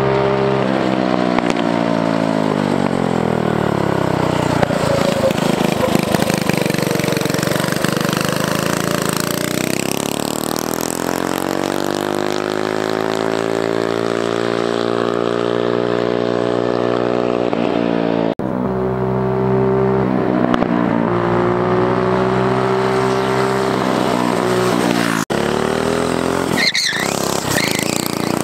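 Go-kart's Tillotson 212 single-cylinder four-stroke engine revving as the kart drives off and back, its pitch repeatedly sweeping up and falling away. A brief high squeal comes near the end.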